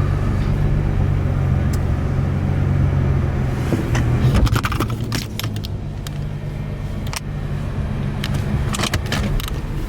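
Car engine idling with a steady low drone, with bursts of light clicks and rattles around the middle and again near the end.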